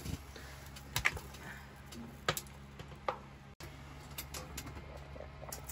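A few scattered sharp clicks and light knocks over a low steady hum, at a wood stove where an enamelled cast-iron Dutch oven of stew is being filled and lidded.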